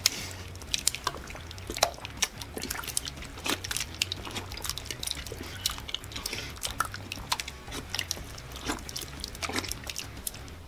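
Two people eating cold baked beans fast from a large stainless steel bowl: wet slurping, smacking and chewing, with irregular sharp clicks of spoons scraping and knocking against the bowl, over a faint low hum.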